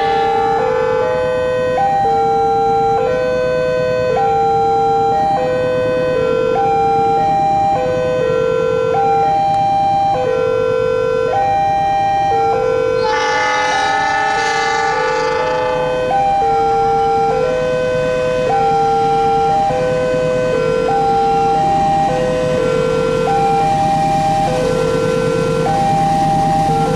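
Electronic railway level-crossing warning alarm sounding continuously, a repeating chime that steps between a lower and a higher tone about every half second, warning of an approaching train. About halfway through a train horn sounds for a few seconds over it.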